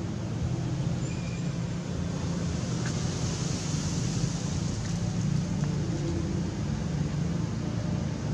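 Steady low hum of distant engine noise, like road traffic.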